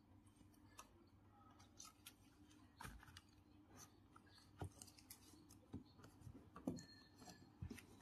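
Faint crinkling and scattered small ticks of aluminium foil tape being handled and pressed down, a sharper tick about two thirds of the way in.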